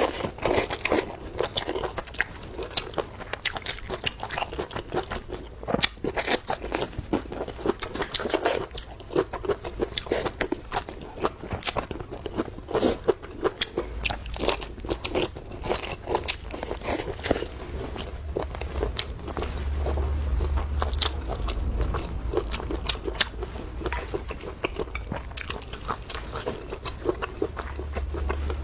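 Close-miked eating: biting and chewing braised pork and sausage, with dense, irregular mouth clicks and smacks. A low rumble joins about halfway through.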